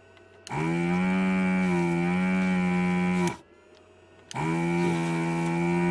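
Katsu ZD-8915 vacuum desoldering station's pump running in two bursts of about three seconds each, a loud steady buzzing hum with a hiss of air, as the gun sucks molten solder off circuit-board joints. The second burst starts just over four seconds in.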